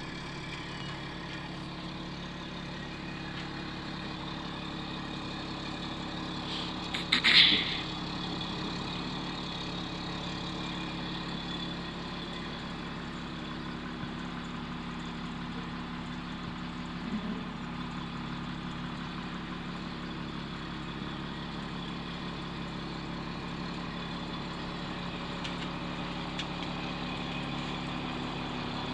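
2001 Harney Coach Renegade motor home's engine running steadily at a distance, with one short loud burst of hiss about seven seconds in.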